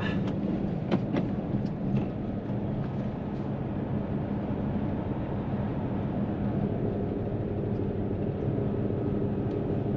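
Steady engine and road drone inside the cab of a Hino tractor unit under way, with a few light clicks about a second in.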